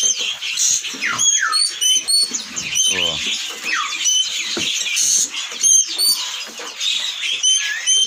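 Many caged songbirds chirping and whistling at once: a dense, overlapping chorus of short high notes and quick slurred calls, some of the same notes repeating again and again.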